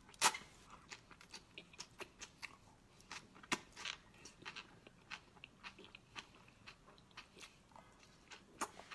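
A person biting and chewing chili-oil-coated Chinese chives. It comes as an irregular run of short crunchy clicks, several a second, with a sharper bite about a third of a second in.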